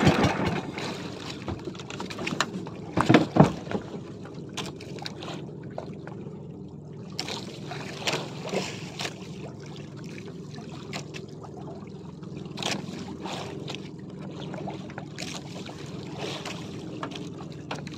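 Water sloshing against the hull of a small wooden outrigger boat, over a low steady hum, with scattered sharp knocks, the loudest about three seconds in.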